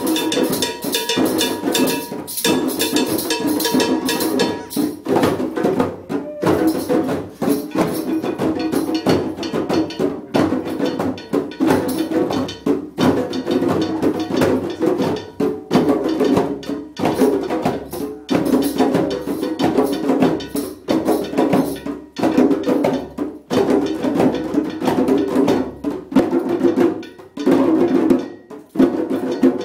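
A drum circle of djembes played by hand together in an ongoing steady rhythm, with smaller hand percussion mixed in.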